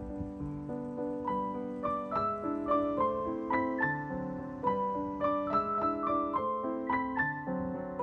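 Background piano music: a light melody of quick notes over low chords, with the melody coming in about a second in.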